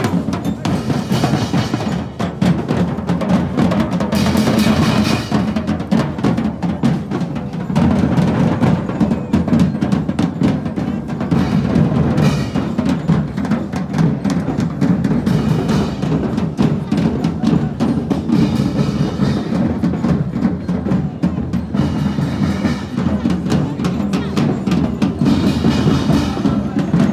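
Street drum group playing snare drums in a steady, busy rhythm, with many sharp stick strikes.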